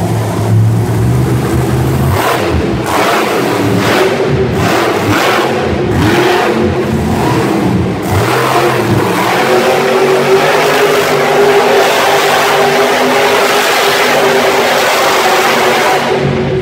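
Monster truck engine revving in repeated up-and-down bursts for several seconds, then running loud and steady at high revs as the truck drives.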